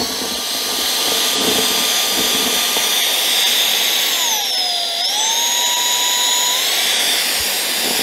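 UMLo S9 cordless stick vacuum's motor running at high suction with a steady high whine. About four seconds in, the whine sags in pitch and then recovers only partway, settling lower: the motor is slowing because the uncharged battery is running very low.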